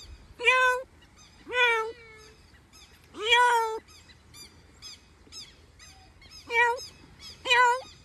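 Green-winged macaw imitating a cat's meow: five loud meows, the third one the longest, with a pause of about three seconds before the last two.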